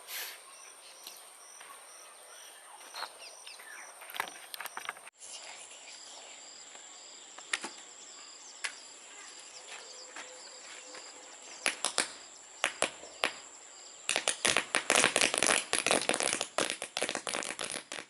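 Toy paper roll caps going off: scattered single snapping pops, then, about fourteen seconds in, a dense rapid crackle of many caps popping for about four seconds.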